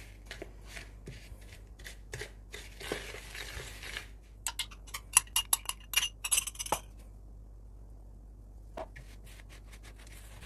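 A spoon stirring dry oat flakes and cocoa in a mixing bowl, with scattered scratchy scrapes. About halfway through comes a quick run of sharp clinks as a metal spoon scrapes and taps inside a small glass, emptying it into the bowl.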